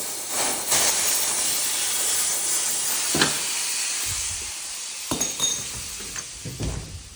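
Pressurised gas hissing out of a loosened line fitting on a car's engine bay plumbing, strong for a few seconds and then fading as the pressure bleeds off. A few sharp metallic clinks come through it.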